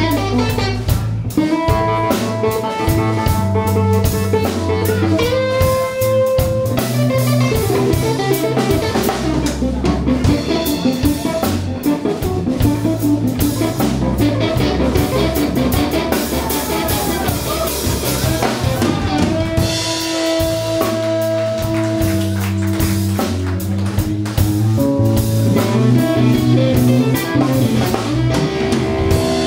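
Live blues trio of electric guitar, electric bass and drum kit playing a slow blues instrumental passage, the guitar holding long notes and bending them up and down over a steady bass line and drums.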